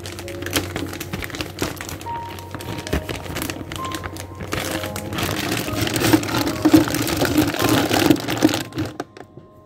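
Plastic packaging crinkling and rustling with small cracks, getting louder about halfway through and stopping abruptly near the end, over soft background music.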